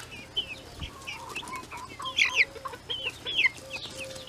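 Young chickens (half-grown buff chicks) peeping: a steady stream of short, high, downward-sliding cheeps, with softer, lower held notes among them.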